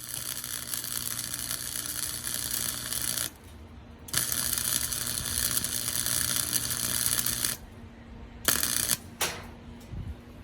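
Electric arc welder laying weld beads: a steady crackling sizzle with a low electrical hum, in two runs of about three seconds each with a short break between, then a brief burst of about a second near the end.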